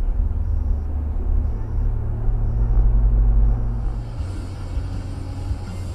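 Low, steady rumble of a car's engine and road noise, picked up inside the cabin by a dashcam. About four seconds in the rumble eases and gives way to a hiss of tyres on a wet road.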